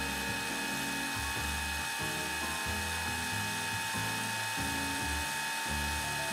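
Background music: a line of short low notes stepping along under a steady, high held tone.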